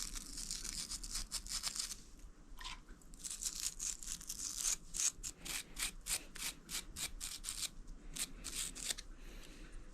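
A wire brush scrubbing paint off a motorcycle fuel tap in quick back-and-forth strokes, a harsh scratchy rasp. The strokes come faster and closer together from about three seconds in.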